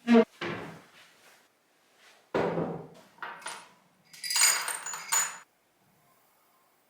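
Spice jars and kitchen containers being handled and set down: a sharp knock at the start, a heavier knock about two seconds in, then a run of clinks with brief ringing about four to five seconds in.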